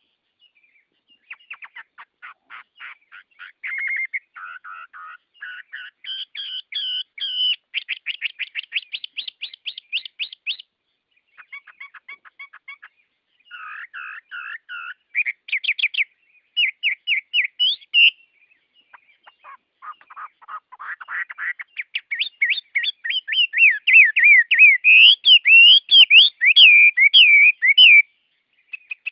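Songbirds singing: a series of rapid trills and quick whistled phrases with short pauses between them, the loudest and busiest run near the end.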